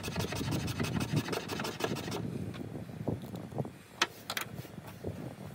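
Knife blade scraping a wooden stick in rapid strokes, shaving off fine tinder scrapings for a ferro rod. The scraping stops about two seconds in, followed by a few sharp clicks.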